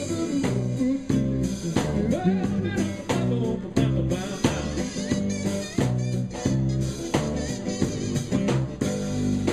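Live band playing an instrumental passage: guitar over bass and drum kit with a steady beat.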